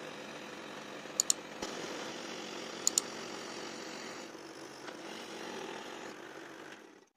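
Electric scroll saw running steadily, its reciprocating blade cutting an inside triangular opening in a board, until it cuts off suddenly near the end. Two quick double clicks, like mouse clicks, sound over it about a second and three seconds in.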